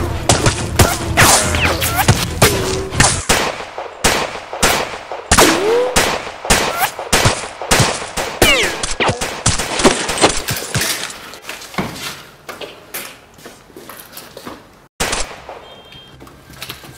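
Gunfire from rifles and a pistol in a close firefight: many rapid shots packed together, thinning out and growing quieter over the last several seconds.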